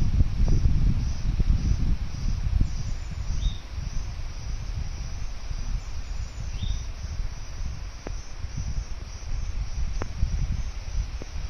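Insect chirping in a high, evenly pulsing trill, cricket-like, over a low rumble, with two brief rising chirps and a few sharp clicks.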